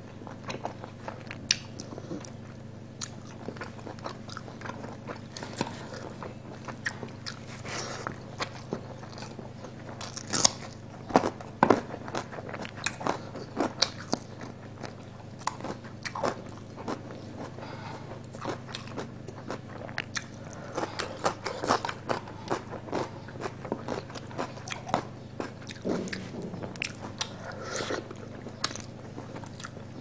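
Close-up mukbang eating sounds: a person chewing and crunching a mouthful of rice and crispy fried onions, with wet mouth clicks and smacks scattered through, loudest about a third of the way in, over a steady low hum.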